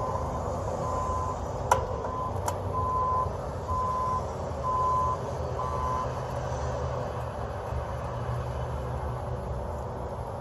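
A vehicle's reversing alarm beeping on and off, a single high tone about once a second, over a steady low engine rumble; the beeping stops about six seconds in. Two sharp clicks come about two seconds in.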